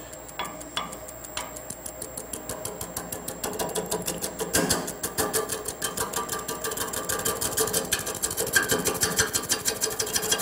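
Shallow gouge cutting into an irregular, green firewood blank spinning slowly on a wood lathe: a rapid, rhythmic clatter that begins as a few separate taps and grows louder and denser after a few seconds. The clatter is the vibration of the blank's uneven shape and knots against the tool, not an aggressive cut.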